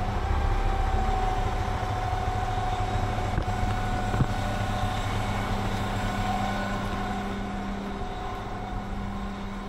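Dump truck's diesel engine running steadily at raised revs with the PTO engaged to drive the dump body's hoist, a constant low drone with a steady high tone, easing off a little near the end.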